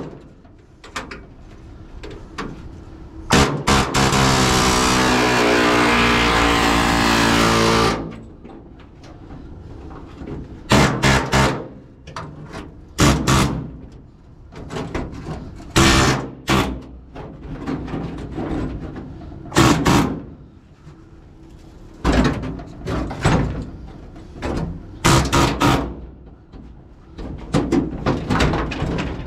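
Pneumatic air hammer with a chisel bit breaking the spot welds that hold a seat platform channel to a 1950 Chevy 3100's steel cab floor. It runs for one long stretch of about four and a half seconds, then in a string of short bursts of a second or less.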